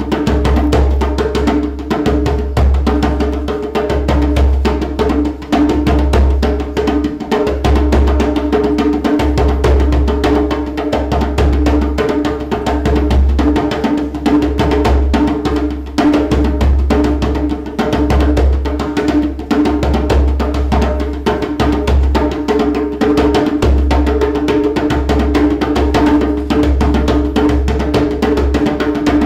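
Djembe played by hand in a fast, continuous rhythm of dense strokes.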